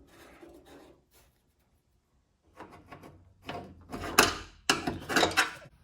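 Rubbing and scraping as parts are twisted and worked loose by hand on a bare car door. It starts about halfway through after a near-silent pause, with the loudest scrapes about 4 and 5 seconds in.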